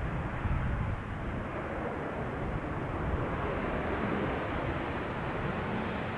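Jet engines of a SunExpress airliner, a steady rushing noise over a low rumble.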